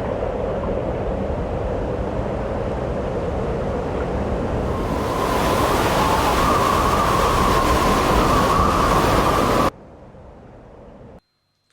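Strong blizzard wind blowing and rushing over the microphone. About five seconds in it grows louder and hissier, with a wavering whistle-like tone. It cuts off abruptly about ten seconds in, leaving only a brief, quieter hiss before the end.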